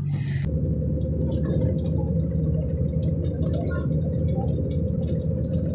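Steady low rumble from inside a moving Lagos molue bus: engine and road noise filling the cabin, starting about half a second in.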